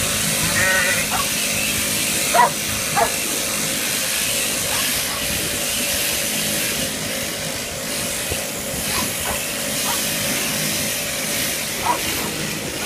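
Electric sheep-shearing handpiece running steadily as it crutches wool from a ewe, a steady hiss over a low motor hum. Short, sharp animal calls break in a few times: two about two and a half and three seconds in, a few more around nine to ten seconds, and one near the end.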